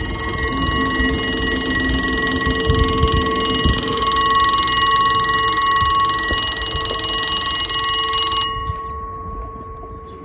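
Electronic warning bell of a French railway level crossing ringing steadily while the barriers come down, warning of an approaching train. The ring cuts off abruptly about eight and a half seconds in, once the barrier is lowered.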